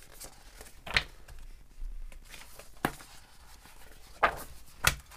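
Pages of a glossy paper catalogue being turned by hand, with four short sharp flaps of paper, the last two close together near the end.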